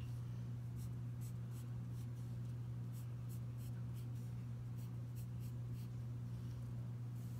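Pencil scratching on paper in many short, separate strokes as small arcs are drawn, over a steady low hum.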